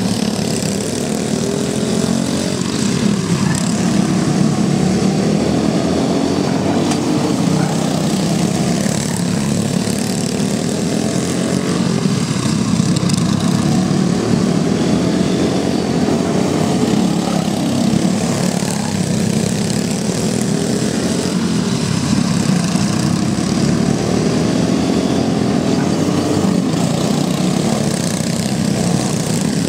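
Several Briggs & Stratton Raptor single-cylinder go-kart engines running together at racing speed, a continuous buzz whose pitch keeps rising and falling as the karts come and go past.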